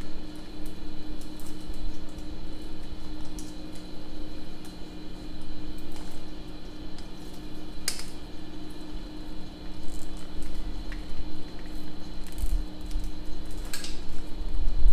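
Motorcycle wiring harness cables and plastic connectors being handled at close range: irregular rustling and small ticks, with two sharper clicks, one about halfway through and one near the end. A steady low hum runs underneath.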